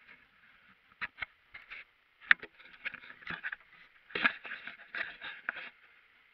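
Irregular knocks, clicks and scuffs of someone moving about in a small boat, with hands and camera bumping against the boat's gunwale. They start about a second in and stop near the end, with two sharper knocks in the middle, over a faint steady hiss.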